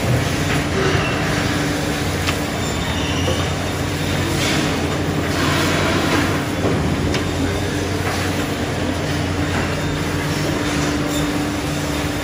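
Steady factory machinery noise from a meat-processing line: the hum and rumble of motor-driven modular plastic conveyor belts, with a few light clicks scattered through it.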